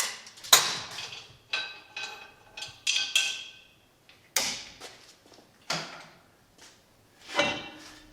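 Metal-on-metal clanks and knocks, about six separate ones, some ringing briefly, as a freshly drilled tractor power-takeoff part is unclamped and lifted off a drill press table.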